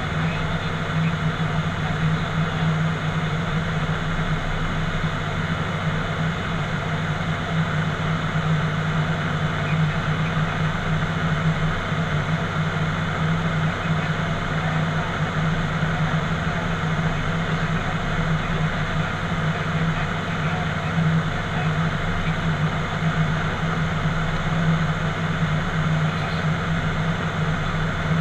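ATR 72-600's Pratt & Whitney PW127 turboprop engines and six-bladed propellers, with airflow, making a steady drone inside the cockpit in flight. A strong low hum runs under an even rushing noise, with no change in pitch or level.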